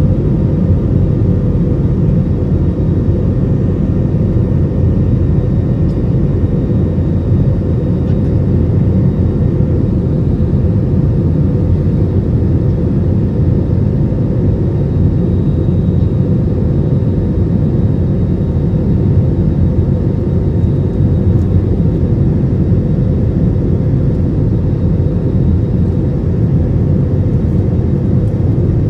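Steady engine and airflow roar inside the cabin of an Airbus A320-family jet airliner climbing after takeoff, deep and unbroken.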